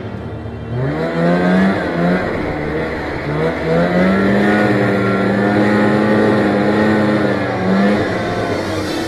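Two-stroke snowmobile engine revving up sharply about a second in, then running at high revs, its pitch rising and dipping with the throttle.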